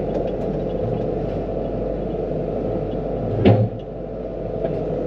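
Excavator diesel engine running steadily, with one loud clunk about three and a half seconds in as an attachment is handled.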